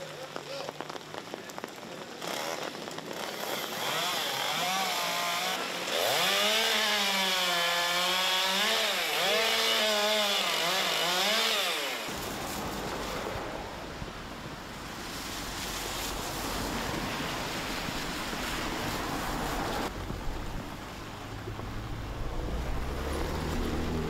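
Chainsaw cutting through a storm-felled tree trunk, its engine note repeatedly rising and falling as the throttle works, loudest for several seconds in the middle. It stops suddenly and gives way to a steady rushing noise of a wet street with passing cars.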